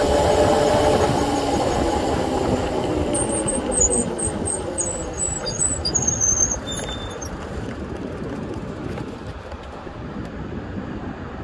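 Razor 750 W e-bike's electric motor whining, its pitch sliding down over the first few seconds as the bike slows, over a steady rush of wind and tyre noise. A run of short high-pitched squeaks follows in the middle, and the whole sound drops quieter after about six seconds.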